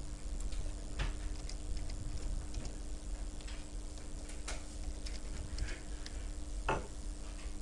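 Computer keyboard keys tapped irregularly as a file name is typed: scattered single clicks, one every half second to a second, with a heavier knock near the end, over a steady low electrical hum.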